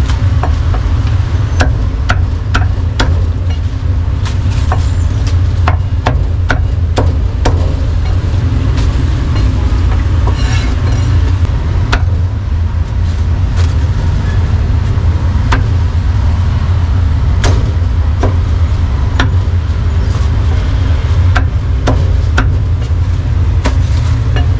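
Meat cleaver chopping roast duck on a thick round wooden chopping block: irregular sharp chops, some in quick runs, over a steady low rumble of street traffic.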